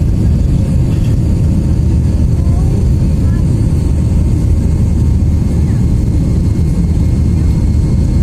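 Steady, loud low roar of an Airbus A320's engines and the rushing air, heard from inside the passenger cabin as the airliner climbs out after takeoff.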